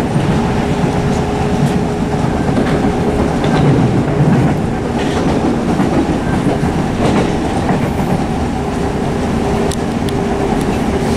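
Interior running sound of a Southeastern Class 465 Networker electric multiple unit travelling at speed: a steady rumble of wheels on rail, with scattered clicks from the wheels passing over rail joints. A steady hum is heard near the start and again from about two-thirds of the way in.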